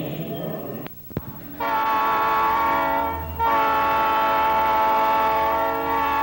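Two short clicks, then a train's air horn sounding a steady multi-note chord, with a brief break about three seconds in before a long held blast.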